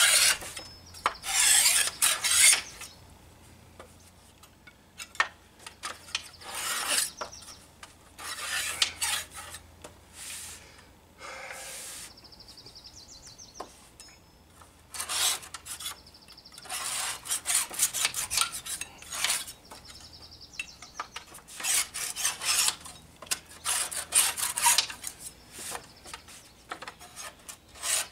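Hand scraper scraping old, flaking clear coat off wooden bench slats: runs of quick back-and-forth strokes with quieter pauses between them.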